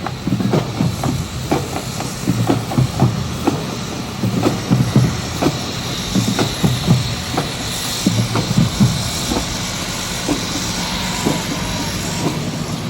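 Steady din of a crowd at a football game, with frequent low thumps through it.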